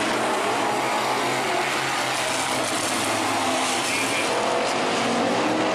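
Several dirt-track street stock race car engines running together, their pitch rising and falling as the cars rev.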